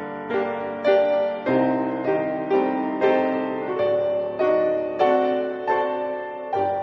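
Slow, gentle piano music: chords and notes struck roughly once or twice a second, each ringing and fading before the next.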